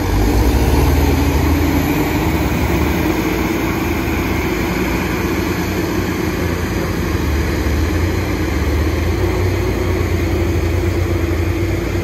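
Heavy diesel engine of earthmoving or logging machinery running steadily at a constant speed.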